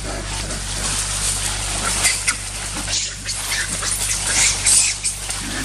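Dry leaf litter rustling and crackling as macaques scramble and run across it, with a string of short sharp crackles in the second half.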